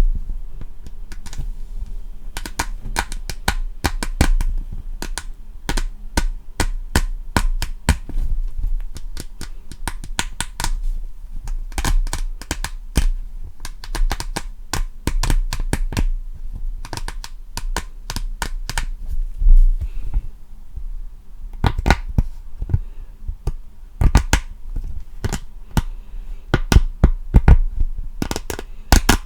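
Rapid, irregular tapping and clicking, often several sharp taps a second, with a sparser stretch midway, as in ASMR tapping triggers.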